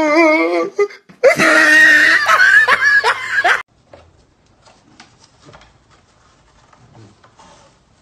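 Husky howling and yowling in a wavering voice that rises and falls, in two stretches, the second louder. It cuts off abruptly about three and a half seconds in, leaving only faint low sounds.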